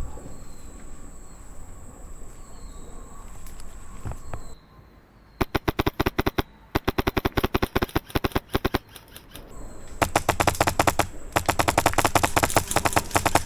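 HPA-powered Wolverine MTW airsoft rifle firing rapid strings of shots, in broken bursts from about five seconds in, then a longer, denser string of fire over the last few seconds.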